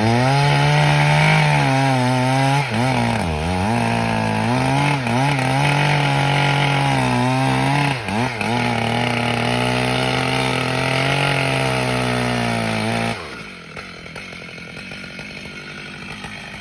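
Two-stroke chainsaw cutting pine at full throttle, its engine pitch dipping several times as it bogs under load in the cut, then dropping to a low idle about thirteen seconds in.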